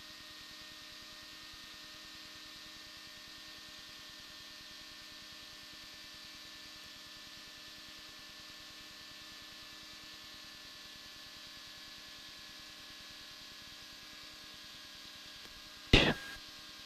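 Steady low hiss and hum of an aircraft headset-intercom audio feed, with a faint whine slowly dropping in pitch. A single sharp click sounds near the end.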